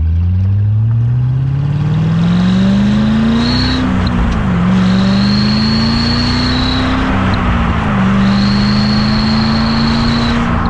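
2006 Corvette C6 Z06's LS7 V8 exhaust accelerating hard, its pitch climbing and dropping back at two gear shifts, then holding. Over it, two clip-on fake turbo whistles in the exhaust tips give a high, steady whistle that cuts out at each shift and comes back as the engine pulls again.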